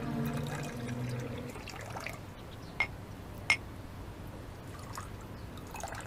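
Tea poured from a small porcelain teapot into cups, a thin stream trickling steadily. Two light clicks come about three seconds in.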